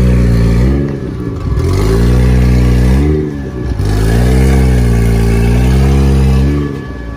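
Nissan 240SX (S13) drift car engine revved three times, its pitch climbing and falling back with each rev; the last rev is the longest.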